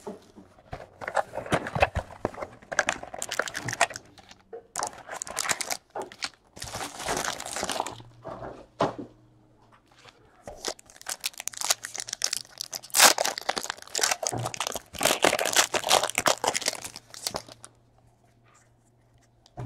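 Plastic trading-card pack wrappers and packaging crinkling and tearing as packs of Panini XR football cards are handled and ripped open, in irregular bursts with short pauses.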